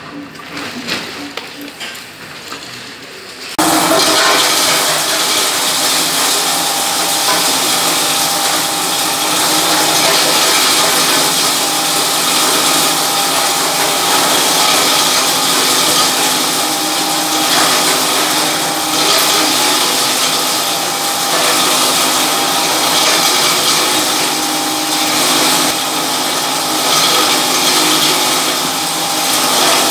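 Electric pharmaceutical waste grinder running and chopping waste fed into its hopper: a loud, dense, steady grinding noise with a steady hum of tones. It cuts in abruptly about three and a half seconds in, after a quieter irregular sound.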